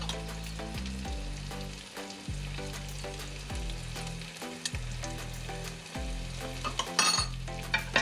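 Frying pan sizzling steadily, with oil and butter frying onion and tomato, over background music. A short, louder burst of noise comes near the end.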